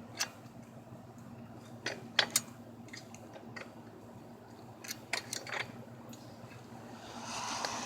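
Scattered clicks and knocks from a BMX tire and rim being handled as the tire is worked onto the rim by hand, with a steady low hum underneath. Near the end comes a louder rustling, scuffing noise.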